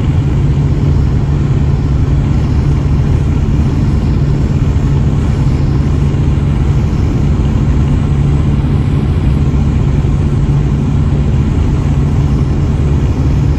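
Loud, steady road and wind noise of a car driving at highway speed, a constant low rumble with a hiss over it.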